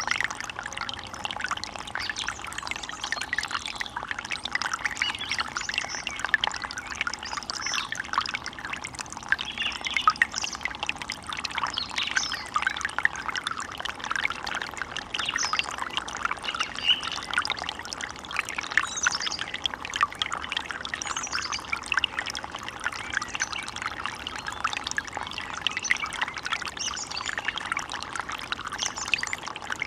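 Small stream of water trickling and burbling steadily, a dense patter of little splashes. A few short high chirps come and go over it.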